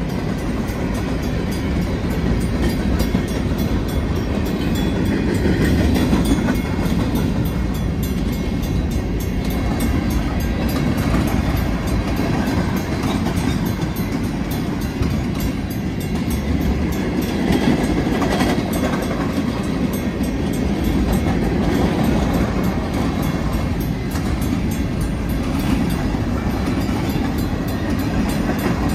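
Freight cars of a long manifest train, mostly covered hoppers, rolling steadily past: a continuous rumble of steel wheels on the rails.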